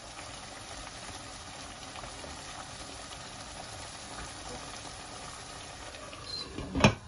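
Chicken korma bubbling and frying steadily in a pot, then a glass lid is set on the pot with a sharp clatter near the end.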